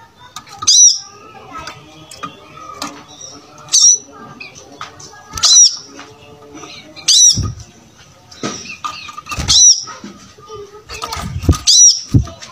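Brown-throated sunbird (kolibri kelapa) calling: a sharp, high, loud chirp repeated about every two seconds, over a busy background of softer chirps and twitters. A few low thumps come in the second half.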